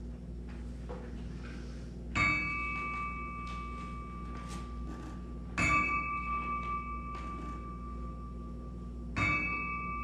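A small bell tolled three times, about three and a half seconds apart, each strike ringing a clear high tone that fades slowly. It is a memorial toll for the dead.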